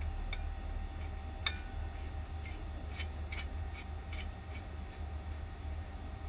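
Plastic humidifier bottle being screwed onto an oxygen flowmeter: a series of small clicks and ticks, the sharpest about one and a half seconds in, over a steady low hum.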